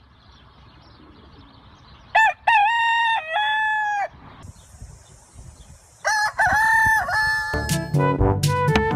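Rooster crowing twice, a cock-a-doodle-doo of about two seconds, then another about four seconds later. Background music starts up near the end.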